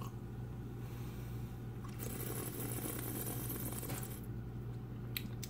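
A person tasting red wine: a sip, then an airy hiss of breath through pursed lips lasting about two seconds, followed by a few short lip smacks near the end. A steady low hum sits underneath.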